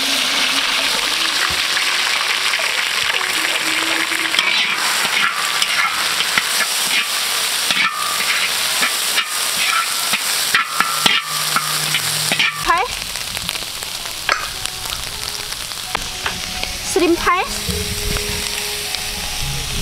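Freshly pounded curry paste sizzling in hot oil in a large metal wok. A steel spoon scrapes and clicks against the pan as the paste is stirred.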